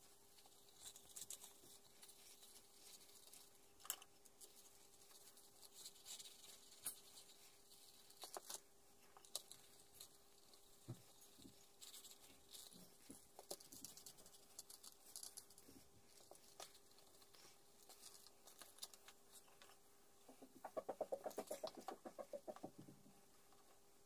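Faint handling sounds of leather pieces and small metal rivets on a wooden board: scattered light taps and rustles, then a quick run of small clicks about three seconds before the end as fingers pick through a pile of rivets.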